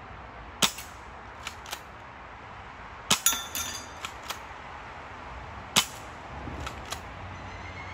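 Crosman PSM45 spring-powered BB pistol fired three times, a little under three seconds apart. Each sharp shot is followed by a couple of fainter ticks, and the middle shot leaves a brief metallic ring.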